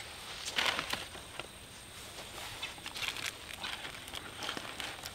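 Crinkling and rustling of MRE ration packaging, foil-laminate pouches and paper packets, handled by hand: a run of irregular crackly rustles.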